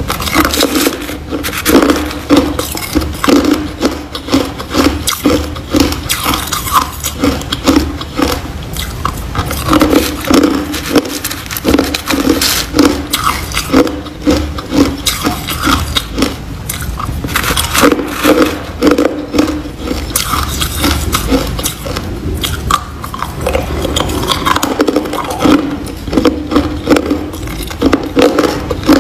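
Hard crushed ice being chewed, a steady run of crisp crunches a few times a second as the chunks break between the teeth.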